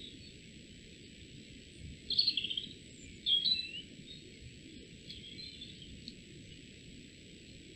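A small songbird calling in short phrases: a quick trill about two seconds in, then a phrase of sliding notes a second later, and fainter notes after that. A steady background hiss runs under it.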